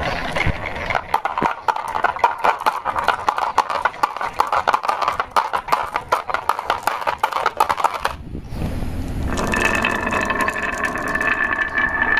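Marbles rolling and clattering down a wooden slope lined with curved wooden walls, a fast run of clicks and knocks as they hit the walls and each other and drop into a plastic toy dump truck. About eight seconds in this gives way to a steadier rolling rumble with a faint ringing tone, as marbles roll down a carved zigzag wooden track.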